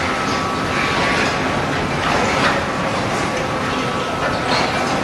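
Industrial machinery running steadily: a loud, continuous mechanical clatter and rumble with no pauses.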